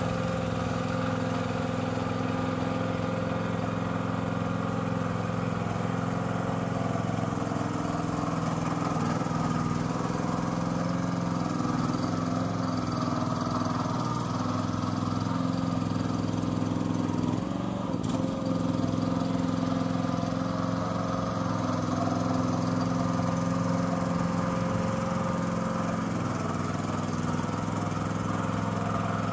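Engine of a tracked mini dumper running steadily as it crawls through mud.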